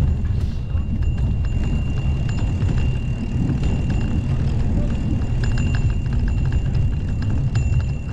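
Wind buffeting the microphone while riding a bike: a steady low rumble, with scattered light clicks and rattles and a thin high whine.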